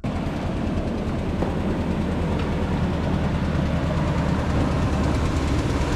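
Chevy K5 Blazer's engine running steadily at idle, still cold, with a fast pulsing exhaust note. The exhaust has a leak.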